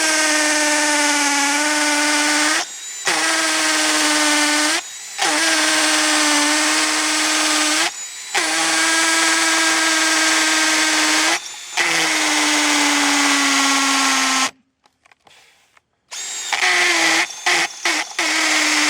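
Battery-powered drill boring into fiber-filled concrete, its motor whining at a steady pitch in runs of a few seconds with brief stops between. It is silent for about two seconds near the end, then restarts in short stuttering bursts as the bit binds on rock aggregate.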